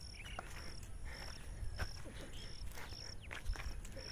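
An insect chirping: a short, high-pitched note repeated evenly about twice a second, over a low rumbling background.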